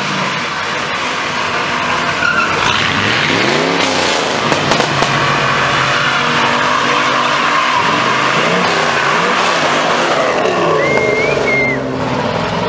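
Car doing a burnout: the engine is revved hard, its pitch swinging up and down several times, over the continuous noisy screech of spinning tyres.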